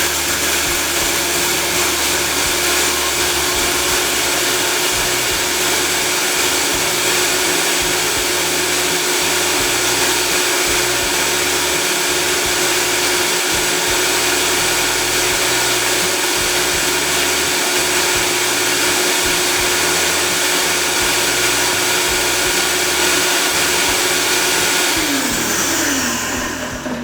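Countertop blender running steadily at high speed, puréeing soaked cashews, garlic, cilantro and water into a creamy sauce; near the end the motor is switched off and winds down with a falling hum.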